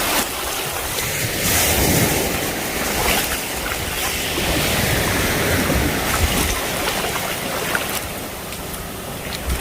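Sea waves washing onto a beach, a steady hiss of surf that swells and eases, with some wind on the microphone.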